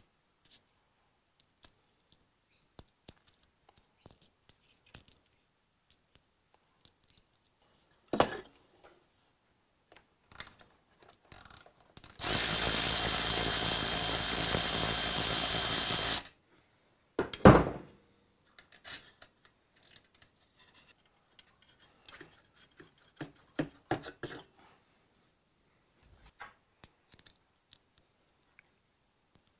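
A cordless ratchet runs steadily for about four seconds, spinning out an exhaust muffler mounting bolt. A sharp knock follows just after it stops. Before and after there are the small clicks and clunks of tools, a bolt and washers being handled.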